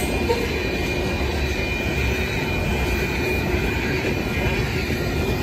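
Freight train of covered hopper cars rolling past: a steady rumble of steel wheels on the rails, with a faint steady high tone over it.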